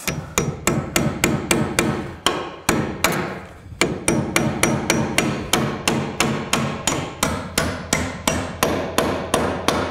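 Claw hammer toenailing a nail at an angle through a wooden rafter into the ridge board: a steady run of strikes, about three a second, with a short break a little before four seconds in. The nail is driven from the side opposite to the rafter's lean, so it pulls the rafter back onto its layout mark.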